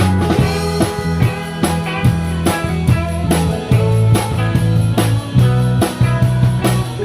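Live rock band playing a song: a drum kit keeps a steady beat under sustained bass guitar notes and guitar lines.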